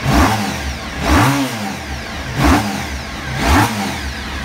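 Honda RC30 VFR750R's 750 cc V4 engine, freshly overhauled, being revved in four quick throttle blips about a second apart, each rising and falling back to a steady idle.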